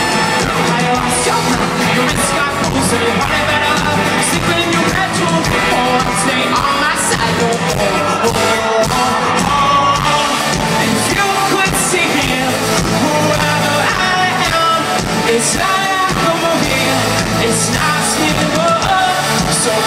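Live pop-rock band playing with a lead singer, recorded from the audience on an iPod, so the sound is loud and distorted. Regular cymbal hits run through it.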